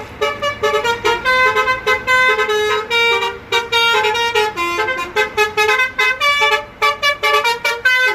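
A bus's multi-tone 'telolet' horn playing a quick tune of short honks that jump between pitches, then cuts off abruptly.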